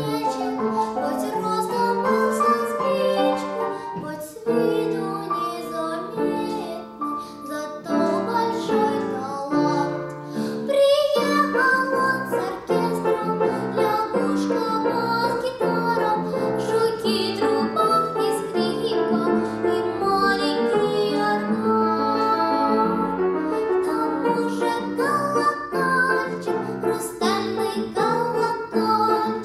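A young girl singing in an academic, classical vocal style over an instrumental accompaniment.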